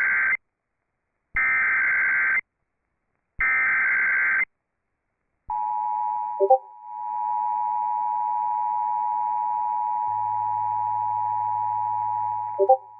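Emergency Alert System SAME header: three one-second bursts of warbling data tone, a second apart, opening an alert that carries a tornado warning. About five seconds in the EAS two-tone attention signal starts, a steady dual-tone alarm that runs on, with a further tone joining about ten seconds in and two brief glitches.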